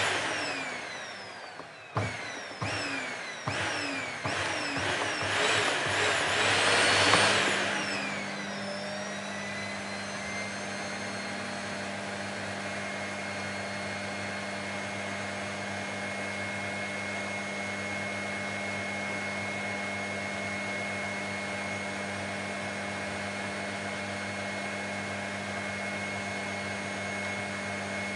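Vacuum cleaner motor surging on several times with sharp jolts and falling whines over the first seven seconds or so, then settling into a steady running hum with a constant high whine.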